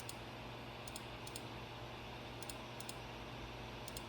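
Light, scattered clicks of computer input, mostly coming in quick pairs a fraction of a second apart, over a faint steady low hum and hiss.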